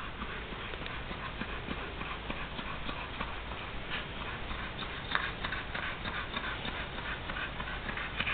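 A tired pit bull panting in quick, even breaths after long exertion, growing louder near the end.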